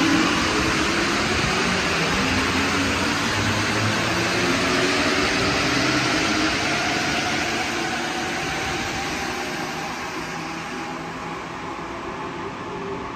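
Alstom metro train pulling out of the station, its traction motors whining and rising in pitch as it gathers speed over a steady rumble of wheels. The noise fades over the last few seconds as the train goes away.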